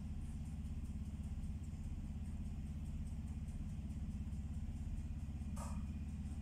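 A steady low, motor-like rumble with a fast even pulse, and a single brief sharp noise about five and a half seconds in.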